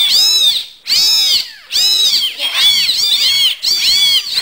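Several young kittens mewing, their high-pitched calls overlapping almost without pause, each rising and then falling in pitch.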